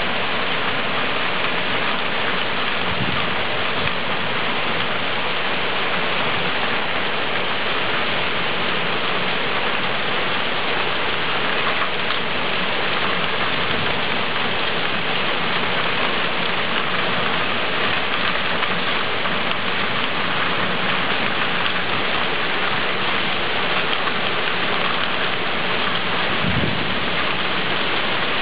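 Heavy rain pouring steadily, a dense even hiss of rain falling on the ground and surfaces, with two brief low thumps, one about three seconds in and one near the end.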